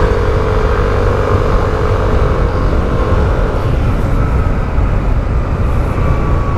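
Motorcycle engine running at a steady cruise, with heavy low wind rumble on a helmet-mounted microphone.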